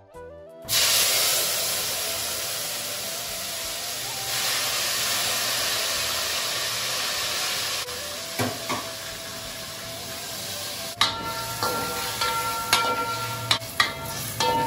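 Food sizzling in a hot brass pan: a loud, steady hiss that starts suddenly about a second in. From about eleven seconds, a metal ladle stirs the vegetables and clinks against the brass pan, which rings briefly with each knock.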